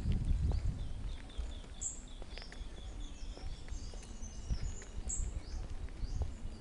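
Several birds chirping and calling, with a sharp high note that comes back every two to three seconds and quick runs of shorter chirps, over a steady low rumble.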